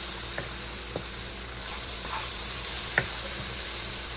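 Sliced bell peppers and onions sizzling in hot oil as flour is stirred in with a wooden spoon to brown, with a few light knocks and scrapes of the spoon against the pan.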